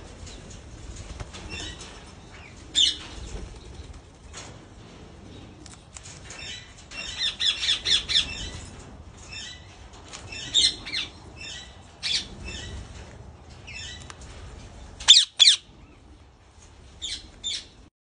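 Indian ringneck parakeets squawking: short, sharp calls scattered through, a quick run of calls about seven seconds in, and two loud squawks about three seconds before the end.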